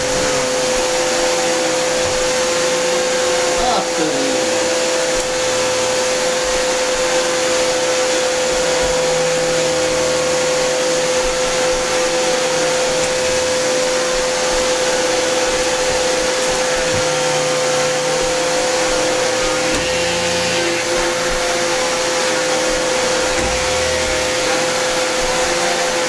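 Canister vacuum cleaner running steadily, a constant hum over the rush of air, as its floor head is pushed over a rug.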